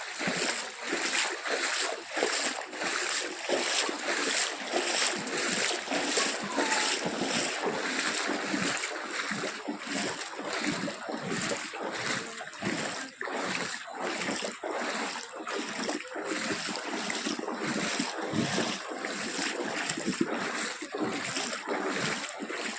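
Floodwater splashing and sloshing in a steady rhythm, about two splashes a second.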